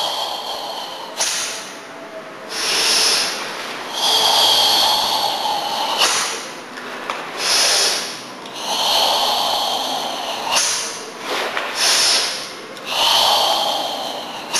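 A karateka's deep, forceful breathing during the Tensho kata: a series of long hissing breaths, each a second or two, alternating in and out through the held tension of the form.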